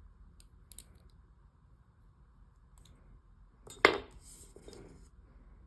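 Small metal parts and hand tools being handled on a workbench: a few faint clicks, then one sharp metallic clack with a short ring about four seconds in, as a tool or part is set down.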